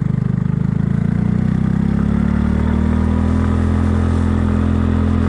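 Kymco People 250 scooter's carbureted single-cylinder engine idling while still cold and warming up, its idle speed rising a little about two seconds in and then holding steady. The exhaust has a slip-on muffler whose gaps to the downpipe are sealed with JB Weld HiHeat, and the owner can't tell whether the patch has quieted the exhaust leak.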